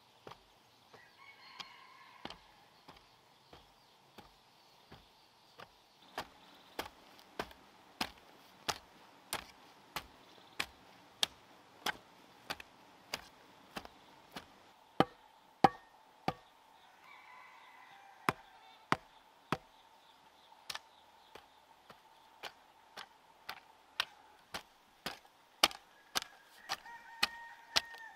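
A hand hoe chopping into clumpy earth, a steady stroke about three times every two seconds, the strikes louder from about six seconds in.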